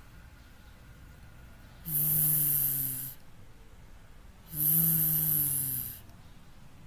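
A person making the phonics sound of the letter V twice: a held, buzzing "vvv", each about a second long.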